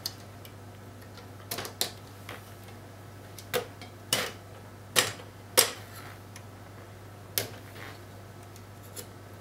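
Sharp plastic clicks and clacks, about seven spread over several seconds, as low-profile 8 GB PC3L-10600R DDR3 server RAM sticks are unlatched from their slot ejector clips and pulled from an HP DL580 Gen8 memory cartridge. A steady low hum runs underneath.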